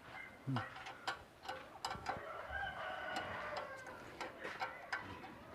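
A rooster crowing faintly: one long call about halfway through, amid scattered light clicks and taps.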